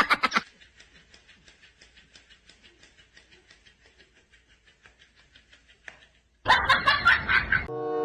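Human laughter: a loud burst of rapid, pulsing laughs at the start, fading to faint, evenly repeated pulses, then another loud burst of laughter near the end.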